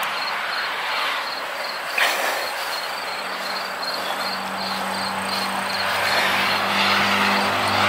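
Insects chirping in a steady rapid pulse over a hiss of outdoor noise, with a single knock about two seconds in. From about three seconds in, a vehicle engine's steady hum joins and grows louder toward the end.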